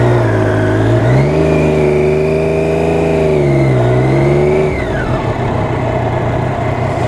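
Triumph Daytona 675R's three-cylinder engine, rising in pitch about a second in as it revs under acceleration, holding, then dropping back around four seconds in. An even rushing noise follows.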